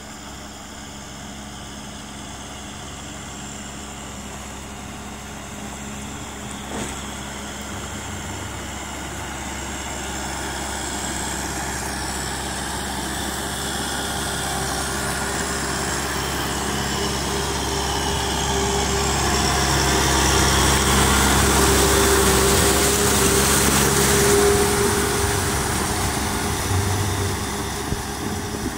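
Kubota M6040SU tractor's diesel engine running steadily under load while pulling a rotary tiller through flooded paddy mud, growing louder as it comes closer, loudest about three-quarters of the way through, then easing off a little.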